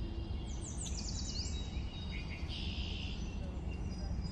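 Outdoor ambience of birds chirping over a steady low rumble, with a run of quick falling notes about a second in and a short buzzy call near the middle.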